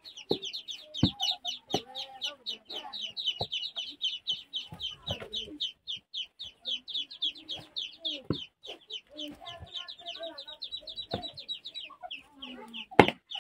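Chickens: chicks peep rapidly and evenly, about six or seven high falling peeps a second, and a hen clucks now and then. A stirring stick knocks against a metal pot of thickening maize porridge, with one sharper knock near the end.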